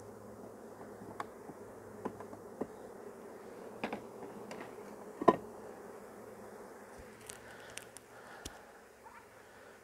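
Steady buzzing of a large mass of honey bees, an artificial swarm crawling up a sheet into a hive box. Scattered sharp wooden knocks and clicks from hive frames and boxes being handled sit over the hum, the loudest about five seconds in.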